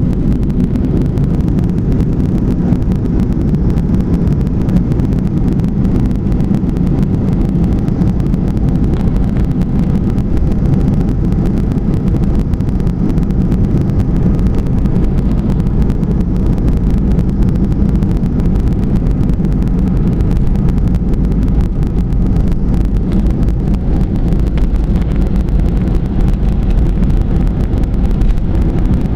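Aircraft cabin noise: the steady, loud drone of engines and airflow, heavy in the low end and unchanging throughout.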